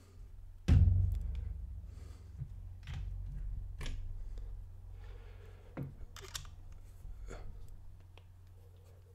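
Hands reassembling a stainless steel rebuildable tank atomizer (Hellvape Destiny RTA): a thump about a second in, then a series of light metallic clicks and scrapes as the tank parts are handled and fitted together.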